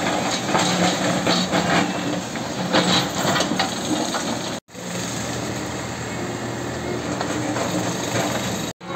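Steady mechanical noise of building renovation work, with scattered knocks and clicks, broken by two abrupt cuts between shots.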